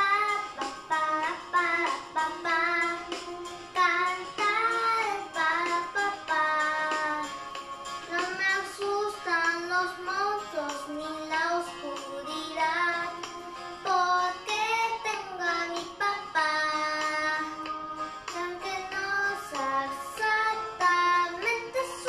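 A young girl singing a song over a backing music track, holding long notes that glide up and down.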